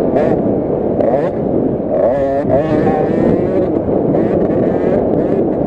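KTM SX50's 50cc two-stroke single-cylinder engine racing close up, its pitch rising and falling repeatedly as the throttle is worked, with wind rushing over the microphone.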